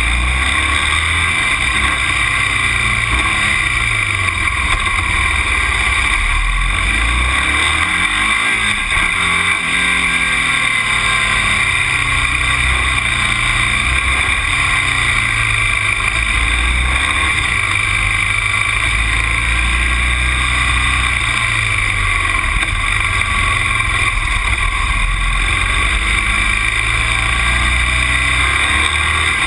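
A motor vehicle's engine running while driving, its pitch rising and falling several times, over steady, loud road and wind noise.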